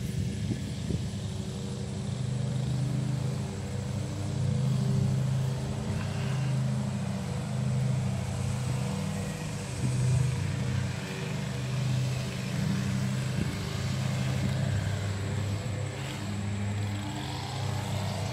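A steady low motor hum, like an engine running, wavering slightly in strength, with a faint high steady tone above it.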